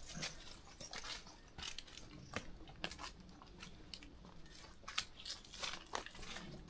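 Hiker's footsteps crunching on a mountain trail, an irregular run of short crisp steps a few times a second.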